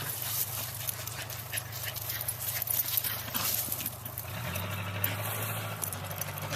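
Dogs playing together, with many quick clicks and rustles of scuffling over a steady low hum.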